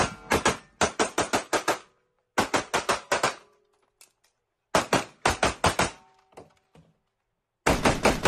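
Rapid-fire gunshots in quick strings of six to eight shots, about seven a second, with short breaks between strings: semi-automatic fire in a speed drill, the shooter going as fast as possible.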